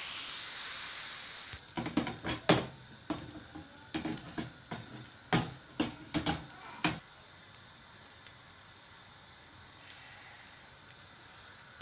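Thin neer dosa batter sizzling as it hits a hot nonstick pan, then a run of sharp metal clanks and knocks as the pan is lifted and tilted on the gas-stove grate to spread the batter. After that only a faint sizzle remains.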